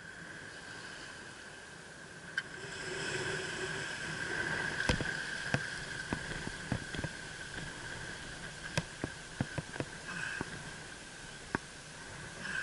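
Steady hiss of wind and shallow water with about a dozen sharp clicks and knocks scattered through it, from a spinning rod and reel being handled; the hiss swells a few seconds in.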